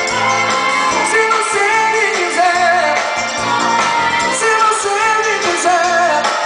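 Live band playing a pop song with lead vocals over a steady beat.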